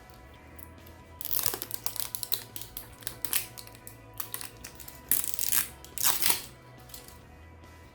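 Small toy wrappers being crinkled and torn open by hand in quick irregular rustles, loudest near the end, over faint background music.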